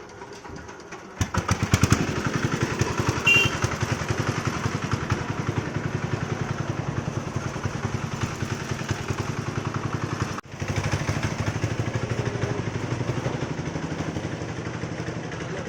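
A motorcycle engine running with fast, even firing pulses, coming in suddenly about a second in. A brief high beep sounds about three seconds in, and the sound cuts out for an instant about ten seconds in.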